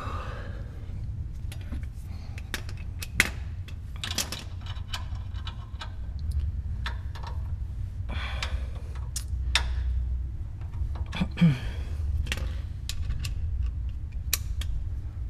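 Scattered clicks and knocks of hardware being handled while a shock skid plate and its bolts are fitted by hand to a Chevy Colorado ZR2's shock, over a steady low hum.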